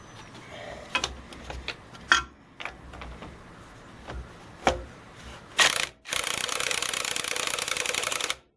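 A few metal knocks and clanks of tools being handled, then a Harbor Freight Earthquake XT 20V cordless 3/4-inch impact wrench gives a short burst and runs for about two seconds, hammering rapidly on a 19 mm motor-mount bolt through a 1/2-inch socket. It stops abruptly.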